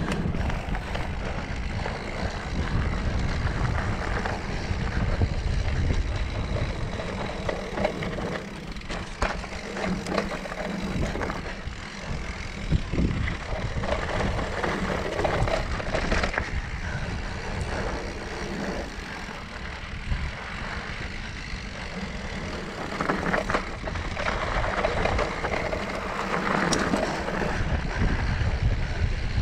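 Mountain bike riding over rough dirt and rock singletrack: steady wind rumble on the microphone with tyre noise and the bike rattling over bumps, broken by scattered sharp knocks.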